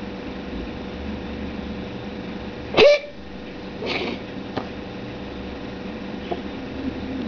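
Domestic cat coughing: a loud short hacking cough about three seconds in, followed by a weaker second one about a second later, over a steady household hum.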